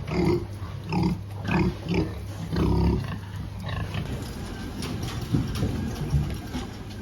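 Pigs grunting: a quick run of short grunts about every half second for the first three seconds, then a low steady rumble with a few scattered grunts.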